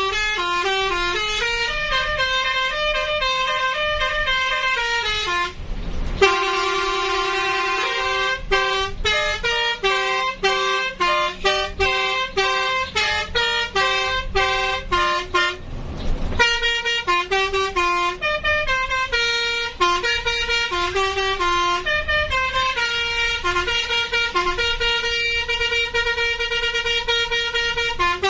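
Telolet multi-tone horn playing a tune, its notes stepping up and down one after another. The tune breaks twice for a short burst of noise, about six and sixteen seconds in.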